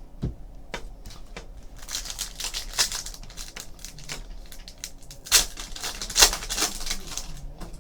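Foil wrapper of a trading card pack crinkling and tearing as it is ripped open and handled, a crackly run of short rustles with a couple of louder rips past the middle.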